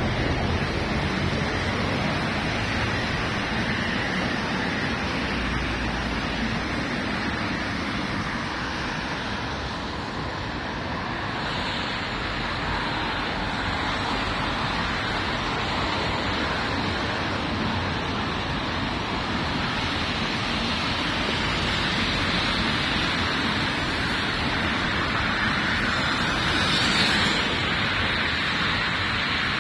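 Rainy street ambience: a steady hiss of rain and traffic tyres on wet asphalt, with a brief louder hiss near the end.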